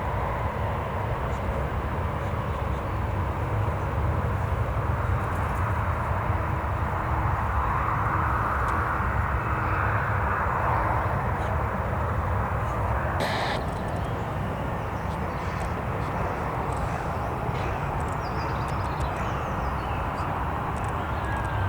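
Jet airliner engines running steadily at a distance, a broad rumble that swells gently around the middle, with one brief click partway through.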